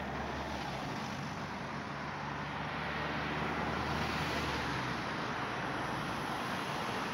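A motor vehicle driving past on the street: engine and tyre noise swells to its loudest about four seconds in, then fades away.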